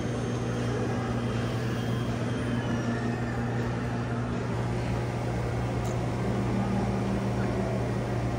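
Cotton candy vending machine running: its spinning head motor gives a steady low hum while it spins sugar into floss.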